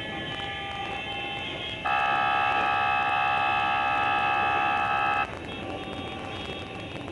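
A vehicle horn sounds one long steady blast of about three seconds, starting about two seconds in and cutting off suddenly, over background street noise.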